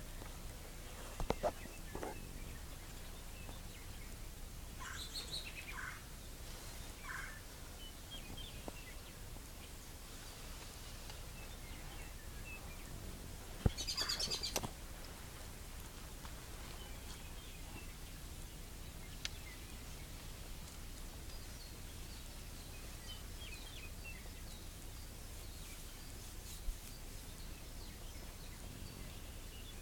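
Wild turkey jake gobbling, a rattling call about a second long near the middle, with a few weaker calls earlier on. Small birds chirp faintly throughout.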